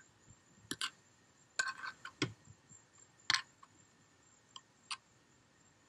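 Hand trowel spreading thick tile mortar on a concrete paver: a series of short, irregular scrapes and clicks as the blade is dragged and tapped across the stone.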